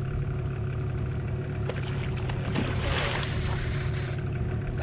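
Steady low drone of the boat's small outboard motor, with a splash about two and a half seconds in, lasting over a second, as a fish strikes the lure at the surface.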